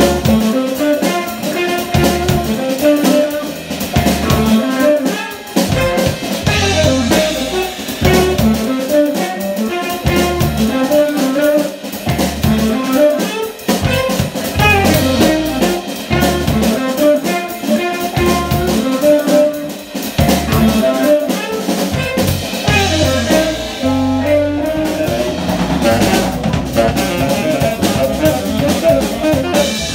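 Live jazz combo playing: a walking electric bass, a hollow-body electric guitar, a saxophone and a drum kit.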